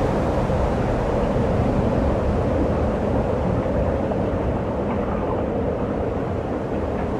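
Ocean surf: a steady, low rushing wash with no separate wave breaks.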